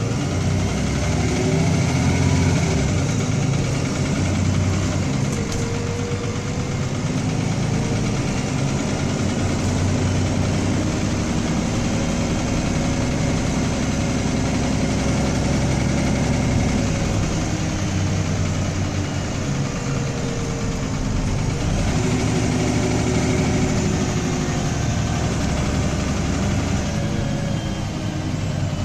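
MAN-chassis Alexander Dennis Enviro 300 bus heard from inside the passenger saloon: its diesel engine runs under load with a rattly note, revs rising as it picks up near the start and shifting through the gears.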